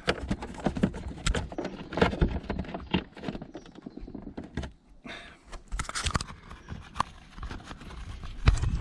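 Irregular clicks, knocks and scrapes of fingers working in the plastic fairing around a motorcycle indicator bulb holder, with a quieter stretch partway through.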